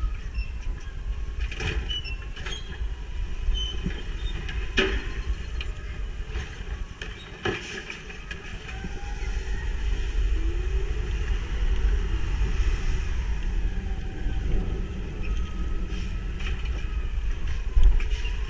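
Natural-gas (CNG) automated side-loader garbage truck running as it creeps along, a steady low engine rumble. A few sharp clanks come through at about 2, 5 and 7.5 seconds.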